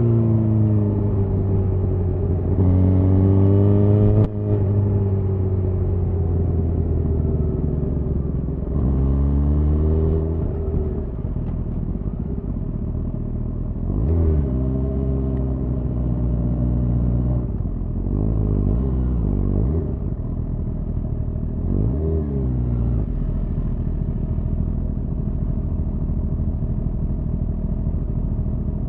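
Suzuki GSX-R1000R inline-four running through a Yoshimura R-11 SQ exhaust. The engine revs up and drops back several times as it accelerates through the gears, with quick throttle blips about two-thirds of the way in. It then settles into a steady, lower note near the end.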